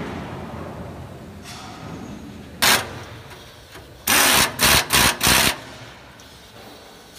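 Small handheld power tool, likely an electric screwdriver, run in short bursts: one brief burst, then about a second later four quick bursts in a row, as screws are driven into the cabinet's wiring terminals.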